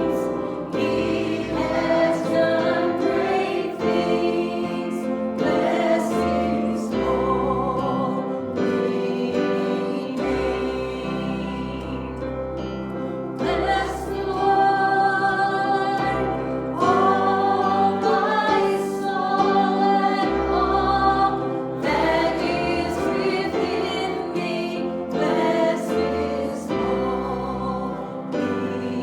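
Church worship music: a group of voices singing together over instrumental accompaniment, with a bass line changing notes every couple of seconds and regular percussive strokes.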